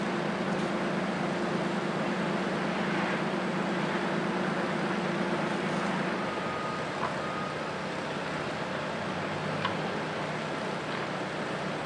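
An engine running steadily under a wash of outdoor noise, its low hum dropping away about halfway through; a couple of faint clicks follow.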